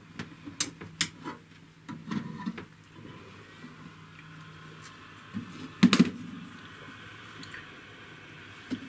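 Tools and small parts handled on a workbench: scattered clicks and taps, then one louder clunk about six seconds in, over a faint steady hiss.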